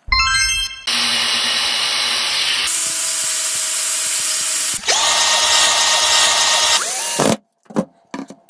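Angle grinder with a cutting disc running against a plastic pipe. About halfway through the sound dips, then the motor spins back up with a rising whine, and it stops about a second before the end.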